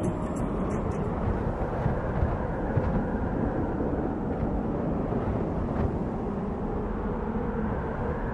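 Wind blowing across the microphone in open desert: a steady low rush of noise without any tone.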